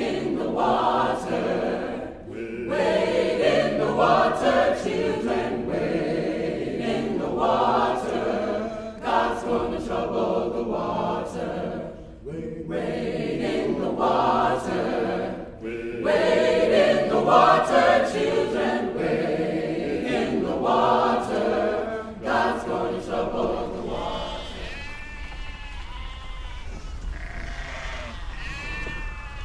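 A group of voices singing a cappella in long phrases with short breaks between them, like a work song. Near the end the singing fades and a few short honking calls are heard.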